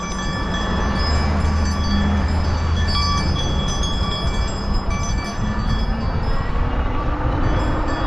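Steady wind and traffic noise on a bicycle-mounted action camera riding through busy traffic. A low vehicle engine rumble is strongest from about one to three and a half seconds in, with thin high tones coming and going over it.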